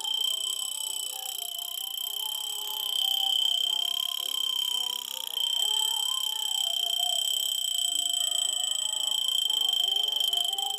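Junghans pocket alarm watch ringing its alarm: one continuous, high-pitched buzzing ring that holds steady throughout.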